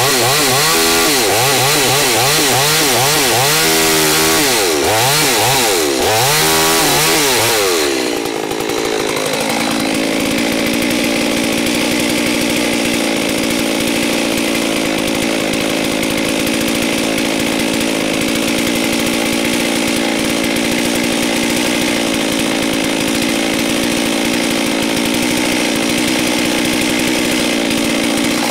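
Holzfforma G388 two-stroke chainsaw cutting through a log, its engine speed rising and falling under load, then about eight seconds in dropping out of the cut to a steady, even running note that holds.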